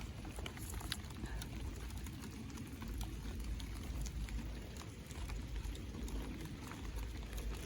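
Faint handling noise of a turn signal blinker unit being fitted: scattered light clicks over a low rumble that comes and goes.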